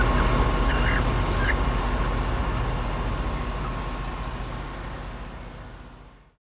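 A few short calls from broiler chickens in live-haul transport crates over a steady low vehicle rumble with a faint steady whine. Everything fades out over the last few seconds.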